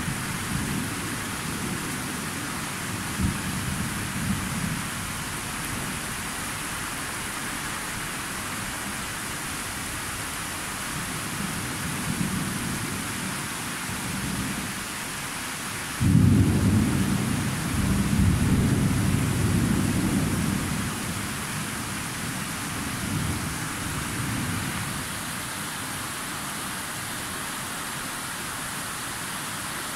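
Thunderstorm: steady rain hissing while thunder rolls in low rumbles, with a sudden loud clap about halfway through that rumbles for several seconds before dying away.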